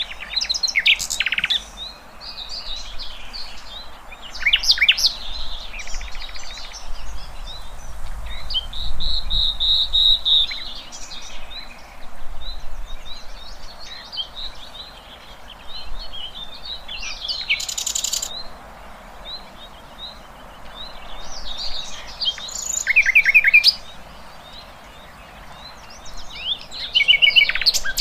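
Several wild songbirds chirping and singing, with short trills and whistles coming in bursts over a steady background hiss.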